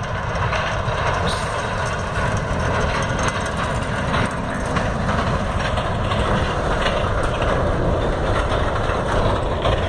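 Diesel sugarcane haul truck pulling three trailers, running steadily as it drives down a dirt road and passes close by.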